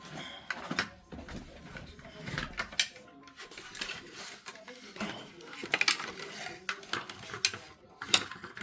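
Metal tools and parts clinking and clattering as they are handled and set down, in a run of irregular sharp clicks.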